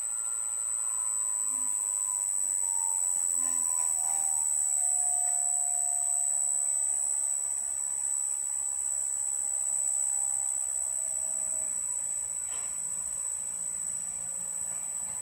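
Marathon three-phase electric motor running on a TECO FM50 variable-frequency drive, slowing as the drive frequency is stepped down from about 58 Hz to 30 Hz: its electrical whine falls steadily in pitch over the first twelve seconds, then holds. A steady high-pitched whine sits over it throughout.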